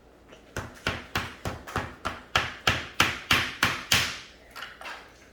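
About a dozen sharp knocks, roughly three a second: a tool striking and chipping at the hard packed dig material of a toy treasure tomb to break it open. The last few knocks are the loudest.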